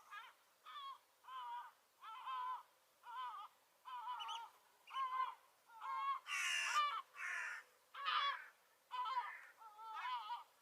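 A gull squawking over and over in short calls, about one and a half a second, with a louder, harsher squawk a little past the middle.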